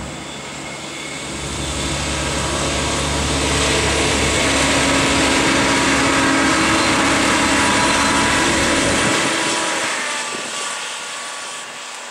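Pesa SA103 diesel railcar approaching, passing close by and pulling away. Its engine note and wheel noise build over the first few seconds, hold while it passes, then fade quickly about nine seconds in as it recedes.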